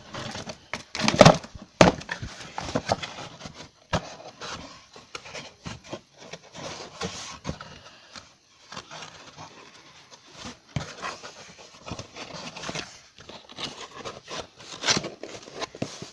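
Handling noise: irregular knocks, clicks and rustling as objects are picked up, moved and set down, with the sharpest knock about a second in.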